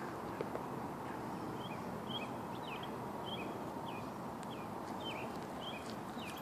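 A songbird chirping, a run of short high notes repeating every half second or so from about a second and a half in, over a steady outdoor hiss.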